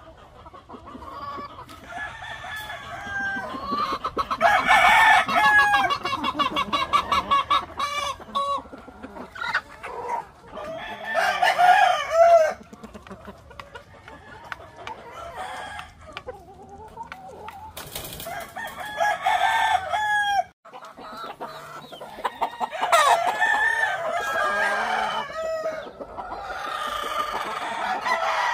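Roosters crowing several times, a few seconds apart, with hens clucking in between.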